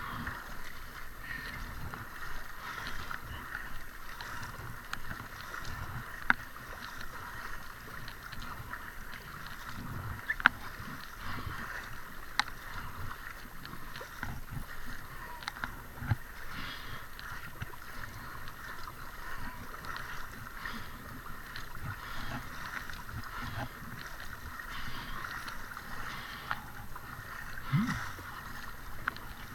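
Double-bladed paddle strokes dipping into the water and water gurgling and splashing around an inflatable kayak, with a few sharp clicks now and then.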